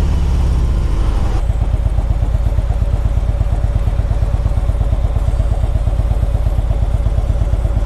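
Harley-Davidson Ultra Limited's V-twin engine running steadily with an even pulsing beat, heard from the rider's seat. A background hiss drops away about a second and a half in.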